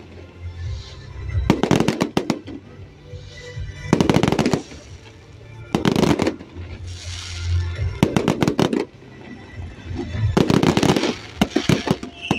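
Fireworks display: aerial shells bursting in six quick clusters of sharp bangs, roughly every two seconds.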